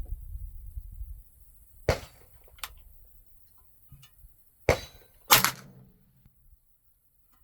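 Ruger 10/22 .22LR rifle being readied and fired: a few sharp metallic clacks and cracks, the loudest near the end with a short ringing tail.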